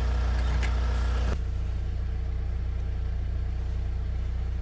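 Steady low hum of a running car engine. A brighter layer of sound over it cuts off abruptly just over a second in, leaving the engine hum alone.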